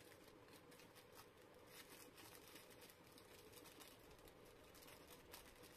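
Faint crinkling of a thin wrapper being unfolded by hand: a run of small, irregular crackles.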